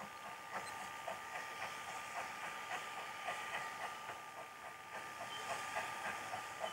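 Steam locomotive working a train of coaches as it approaches, with exhaust beats about two a second.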